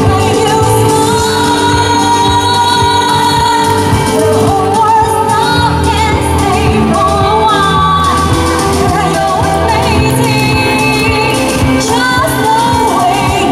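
Live pop song: a woman singing into a microphone through a PA, with band accompaniment. Her voice carries over the band's steady accompaniment.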